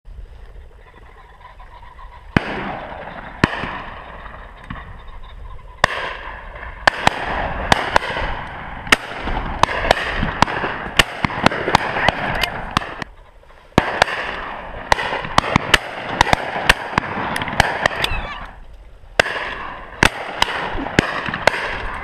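Shotguns firing again and again along a line of guns at a driven pheasant shoot: many sharp shots starting a couple of seconds in, some loud and close, others fainter and farther off, irregularly spaced and often in quick pairs.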